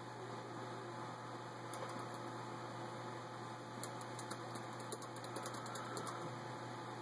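Quiet room tone: a steady low hum and hiss, with a scatter of faint small clicks from about two seconds in until about six seconds in.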